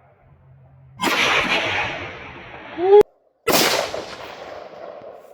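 Two gunshots, about a second in and about three and a half seconds in, each a sharp crack followed by a long rolling echo. Just before the second shot there is a short, loud rising tone and a moment of complete silence.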